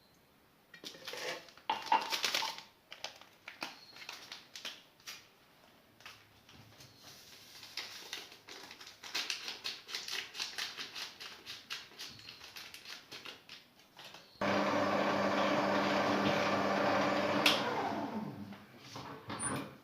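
Utensils clinking and tapping against a bowl. About fourteen seconds in, an electric mixer starts suddenly and runs steadily for about four seconds, beating eggs and sugar. Its pitch then falls as it winds down.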